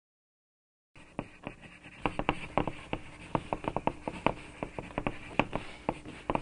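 Pencil sketching on paper: an irregular run of quick scratchy strokes and sharp taps, starting about a second in.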